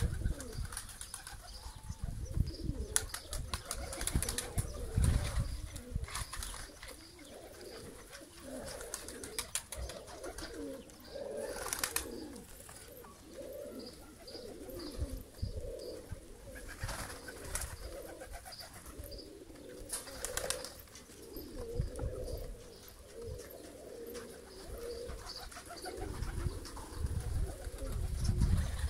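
A flock of Trakya Makaracı pigeons cooing steadily, with a few short bursts of wing flapping. A low rumble comes near the start and again near the end.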